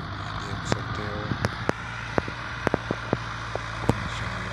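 Tractor engine running steadily at a distance while pulling a cultivator through a field, a low hum. Scattered sharp clicks sound over it.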